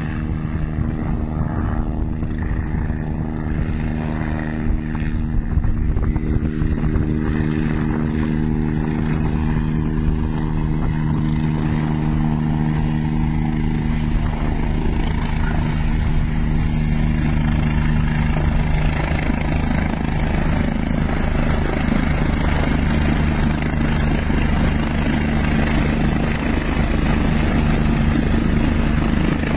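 Eurocopter EC145 helicopter's rotor and turbines running steadily as it approaches and hovers close by. A rush of rotor wash and wind on the microphone grows louder from about halfway through.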